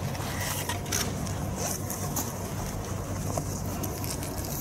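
Steady low hum with faint scattered clicks and rustles.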